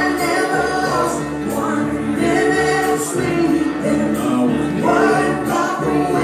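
Music with a group of voices singing together, held notes over an accompaniment.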